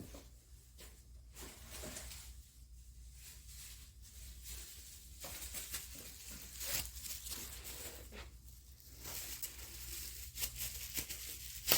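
Handling noise: rustling and scraping with scattered light clicks, as small objects and parts are picked up and moved about.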